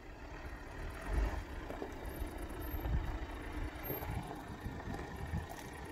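Wind buffeting the microphone in uneven gusts, over the low, steady running of a Jeep Renegade Trailhawk's engine as it crawls on a steep rock slope.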